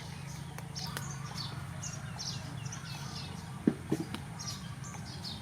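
Small birds chirping, short high downward chirps about twice a second, over a steady low hum. Two brief louder sounds come close together about three and a half seconds in.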